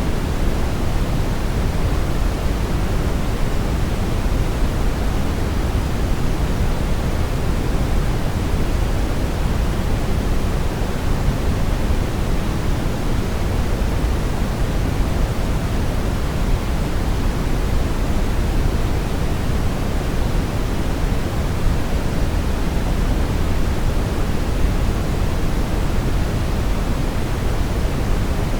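Steady synthetic brown noise: an even, deep rushing hiss, strongest in the low end and fading toward the top, with no changes.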